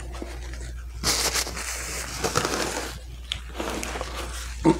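Takeout packaging being handled, a crinkling, crushing rustle for a couple of seconds, with a click a little later and a short vocal sound near the end.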